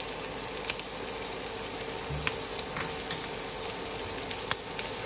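Half-cooked marinated prawns sizzling in hot oil in a flat non-stick pan, a steady sizzle with a few sharp pops and spits scattered through it.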